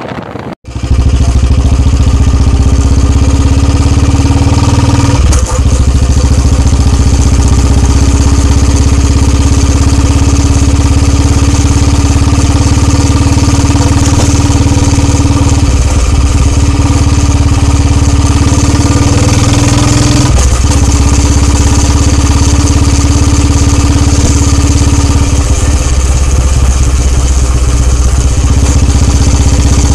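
Royal Enfield single-cylinder motorcycle with a long Punjab aftermarket silencer, running steadily and loud, with a few brief dips in level.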